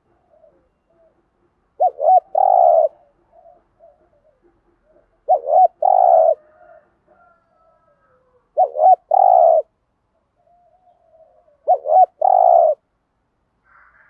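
Spotted dove cooing: four phrases about every three and a half seconds, each two short rising notes followed by a longer drawn-out coo. Fainter, softer coos come between the phrases.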